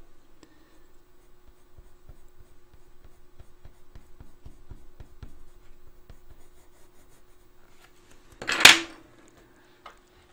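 Coloured pencil working in short, light strokes on drawing paper: a run of faint scratchy ticks over a faint steady hum. About eight and a half seconds in comes one much louder knock, then a soft click near the end.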